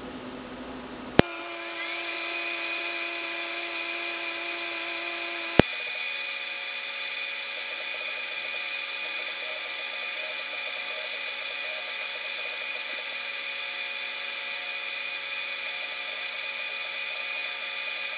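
TIG welding arc burning with a steady hiss and a high, even whine. A sharp click comes about a second in, where the sound grows louder, and another about five and a half seconds in.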